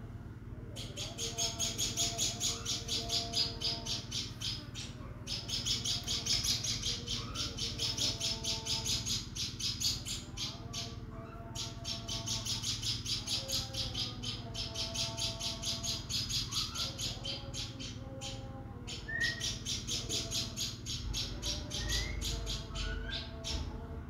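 A small caged songbird chattering: long runs of rapid, high chip notes, about ten a second, in four runs of several seconds each with short pauses between them. Softer, lower calls sound underneath.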